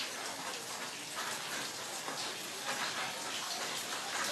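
Steady hiss of background noise with faint scattered ticks, even in level throughout.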